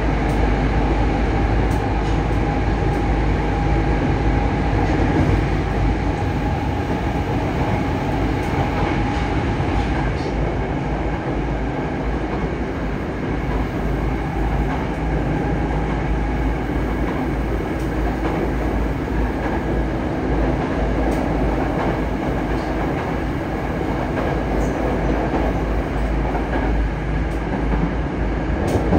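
Running noise inside a Yokohama Municipal Subway 3000S car with Mitsubishi IGBT-VVVF control, heard as a steady rumble of wheels on rail while the train travels at speed. A steady high whine sits over the first third and then fades.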